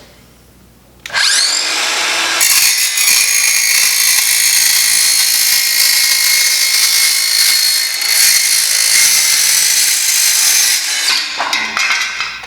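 Circular saw with a multi-material blade spinning up with a rising whine about a second in, then cutting through corrugated steel roofing sheet with a loud, high-pitched metallic noise for about eight seconds, then winding down near the end.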